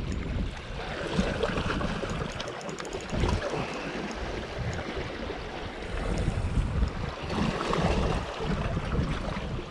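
Wind buffeting the microphone over sea waves washing against shore rocks, with a short run of fast ticks a second or two in.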